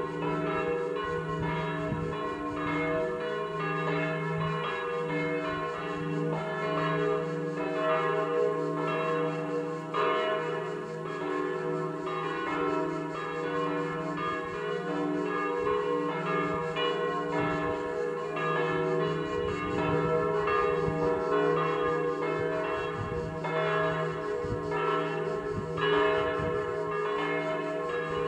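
Festive peal of three church bells, the largest tuned to E3, striking continuously in close, overlapping strokes, with the big bell's low hum held under them.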